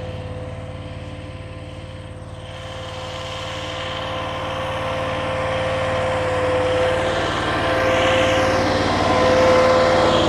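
Infront YF380 mini skid steer's engine running steadily with a constant whine, growing gradually louder from about two seconds in as the loader works its bucket to dump dirt.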